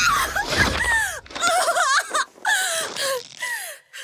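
A voice giving a run of short pitched cries, about two a second, most of them sliding down in pitch and growing fainter toward the end.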